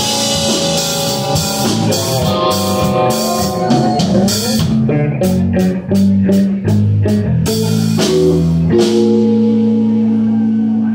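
Live rock trio playing an instrumental passage on electric guitar, bass guitar and drum kit. About nine seconds in the drums stop and the band holds one long chord.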